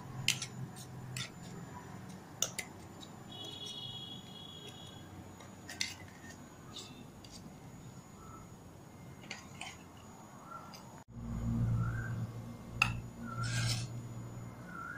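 Steel spoon scraping thick batter into a plastic bowl, with scattered light clicks and scrapes. After about eleven seconds a low steady hum comes in.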